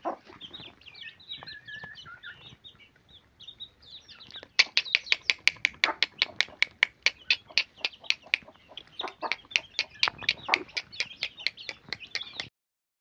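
A brood of chicks peeping: soft chirps at first, then from about four seconds in a fast, loud run of high peeps, about five a second, with lower clucking from the mother hen mixed in. The sound cuts off abruptly near the end.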